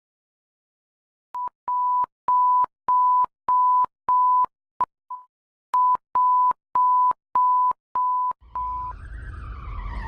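A string of about a dozen identical 1 kHz censor bleeps, each about a third of a second long with short silences between and a brief break in the middle, standing in for bleeped-out cursing. Near the end, a wailing alarm tone that glides down and up over a low rumble begins.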